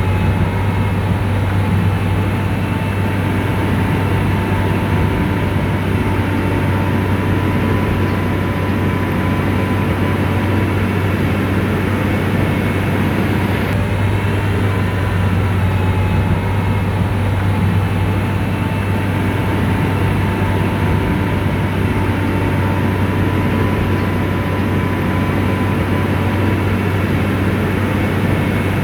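Motor grader's diesel engine running steadily under load, with a constant low hum.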